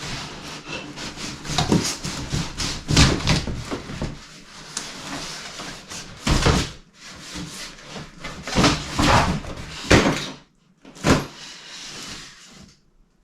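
Cardboard packaging being handled while unboxing: irregular knocks, thuds and scraping rustles as boxes and flaps are opened, moved and set down, the heaviest thuds about three, six and ten seconds in.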